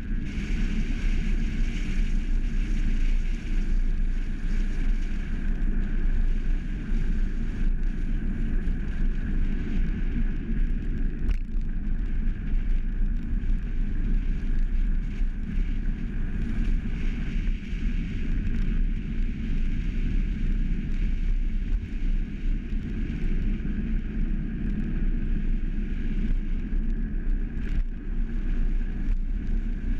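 Steady wind rush on the microphone and road noise from a velomobile rolling along asphalt at speed, with a couple of faint knocks from bumps in the road.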